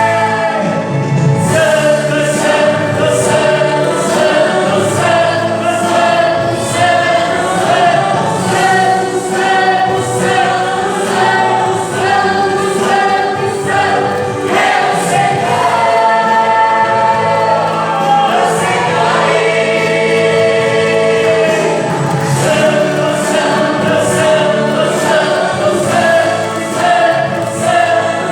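Church worship group singing a gospel song as a choir of several voices over instrumental accompaniment with a steady beat.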